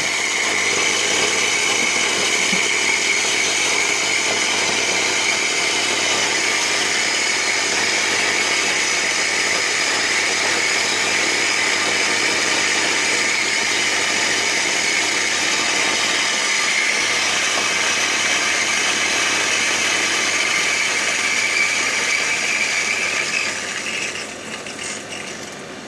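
Electric coffee grinder motor running steadily as it grinds light-roast coffee beans. Near the end it gets quieter as the beans are all ground.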